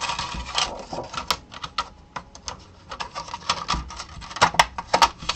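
Irregular clicks and light rattles of an LCD monitor's metal chassis and panel being handled and pressed into place, with a few sharper clicks near the end.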